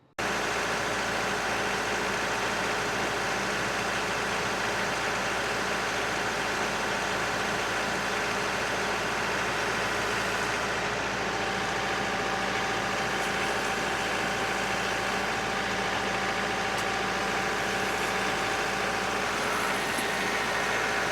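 John Deere 4052R compact tractor's diesel engine running steadily, with its cab A/C system being run to check it.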